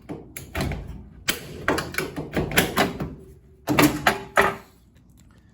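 Flat-tip screwdriver prying the bottom front panel off a Kenmore 700 Series dryer: a quick series of clicks and clatters as the panel clips let go, loudest about four seconds in, stopping shortly after.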